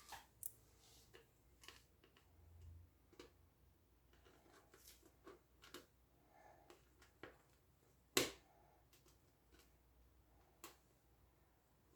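Quiet handling noises of fan parts: scattered light clicks and taps, with one louder sharp click about eight seconds in.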